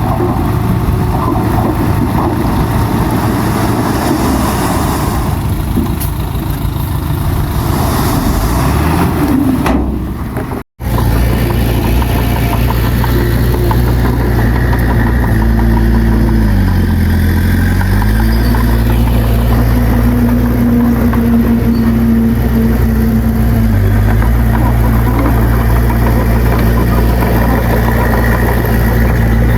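Diesel engine of heavy earthmoving machinery running loud and steady. Its pitch sags briefly under load about halfway through and again slightly a little later. The sound breaks off for an instant about a third of the way in.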